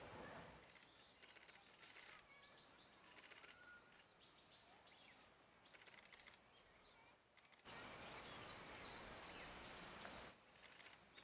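Faint small-bird calls: a string of short, high chirps, then a longer wavering whistled phrase over louder background hiss.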